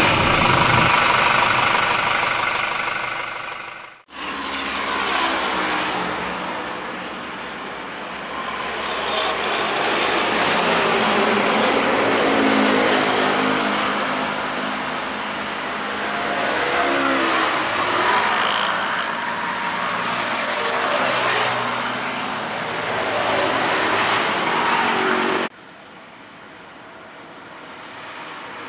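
Roadside highway traffic: heavy trucks and motorcycles passing close by, engine and tyre noise swelling and fading as each goes past. A short sound plays over the opening logo, and near the end the traffic noise drops suddenly to a quieter level.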